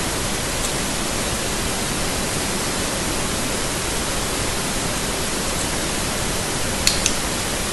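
Steady, even hiss like static, with two short sharp clicks close together near the end.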